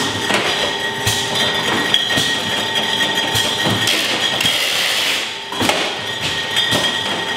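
Small-brewery bottling machinery running with a steady whine, with irregular knocks and the clink of glass bottles as beer is hand-labelled and capped.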